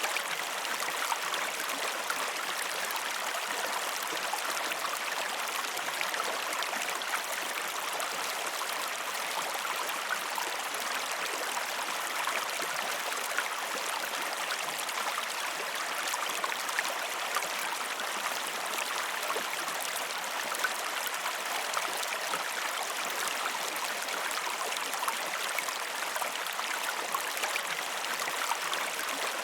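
River water flowing in a steady rush, with fine splashing and gurgling flecks throughout.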